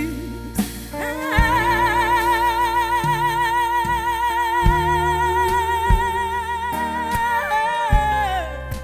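Live band music: one long held note with steady vibrato lasting about six seconds, over bass notes and occasional drum hits, fading near the end.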